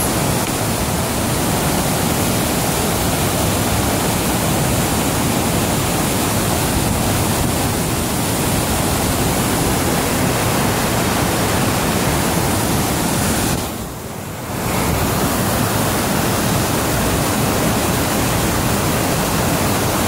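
Waterfall cascading over rock, a loud, steady rushing that dips briefly about two-thirds of the way through.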